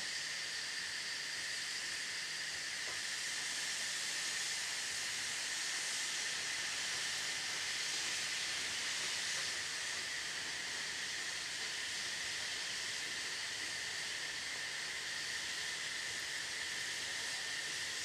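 Steady hiss of steam escaping from a Saxon IV K narrow-gauge steam locomotive, venting through its open cylinder drain cocks. No exhaust beats can be heard.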